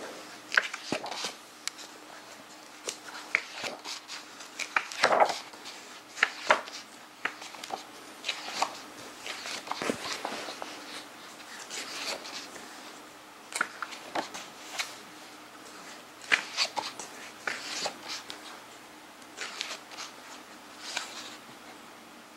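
Pages of a large, heavy hardcover book being turned one after another, paper rustling and flapping in short bursts every second or so.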